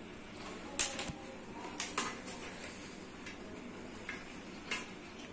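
Sharp clicks and clatter as a CRT television's circuit board and wiring are worked loose by hand from the picture tube's neck. The loudest click comes about a second in, a pair follows around two seconds, and two softer ones come near the end.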